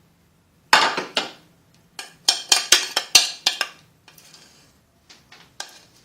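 Spoon clinking and knocking against the pot of hot sugar syrup: two sharp strikes about a second in, a quick run of about seven between two and four seconds, then a few fainter taps near the end, as the syrup is scooped out in half-spoonfuls.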